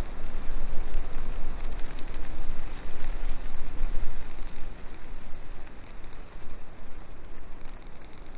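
Wind buffeting the microphone: a loud rushing noise with a deep rumble, rising and falling unevenly in gusts.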